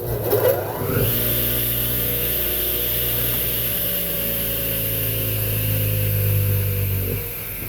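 Radial arm saw's induction motor starting with a rising whine as it spins up, then running steadily; about seven seconds in it is switched off and starts to coast down. The motor has just been cleaned, and the owner judges its bearings, suspected of going, to sound okay.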